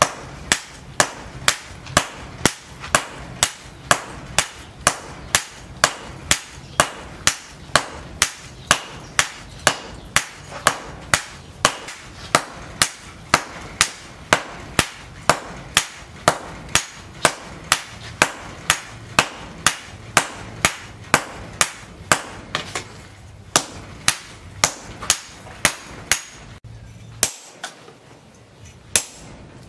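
Hand hammer striking red-hot leaf-spring steel on a cylindrical steel anvil, forging a machete blade: steady blows about two a second, each a sharp ringing clank. The blows stop briefly near the end.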